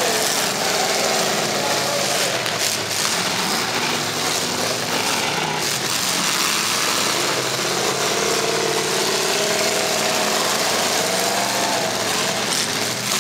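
Several full-size demolition derby cars' engines running and revving, their pitch rising and falling, with a few sharp knocks from cars colliding.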